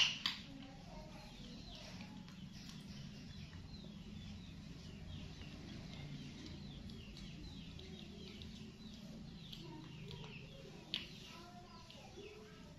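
Faint quick high chirps repeating throughout over a low steady hum, with a sharp click right at the start, a second one just after, and another about eleven seconds in.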